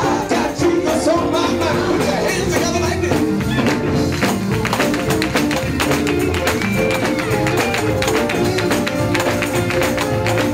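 Live Pentecostal-style gospel music: tambourine and rapid percussion strokes over held chords, with voices singing in the mix.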